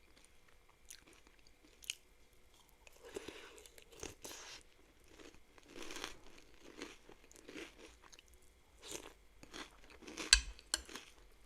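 Close-miked chewing of crunchy KitKat cereal: irregular crunches and chewing, with the sharpest crunch about ten seconds in.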